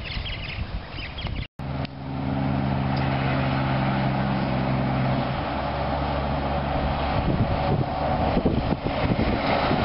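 Heavy tipper semi-trailer truck approaching: its diesel engine runs at a steady note, then road and tyre noise builds as it draws nearer. The sound cuts out briefly about a second and a half in.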